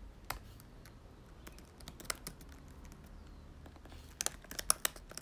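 Soft keyboard typing: scattered key clicks, with a quick run of clicks about four seconds in.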